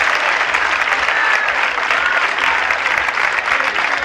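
A large crowd applauding: many hands clapping steadily, without a break.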